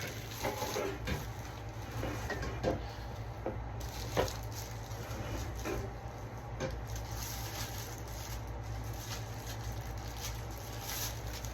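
Scattered light knocks and rattles of furniture pieces being handled, over a steady low hum.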